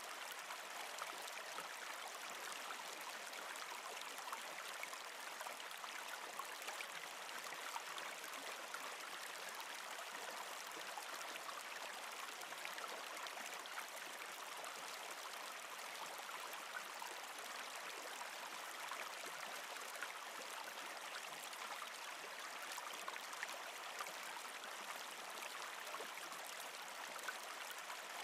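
Shallow forest stream flowing: a steady, even rushing of water with faint scattered ticks.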